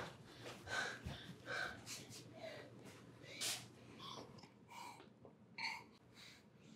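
A person breathing hard in short, faint, irregular breaths and gasps, about one every half second to second: out of breath after running in.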